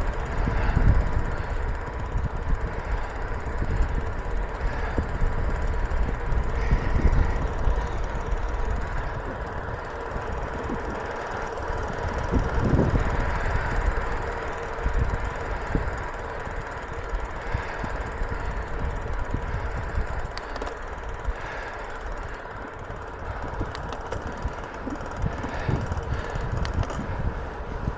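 Wind rushing over the microphone and road rumble from a bicycle being ridden along a road, with a faint steady hum underneath.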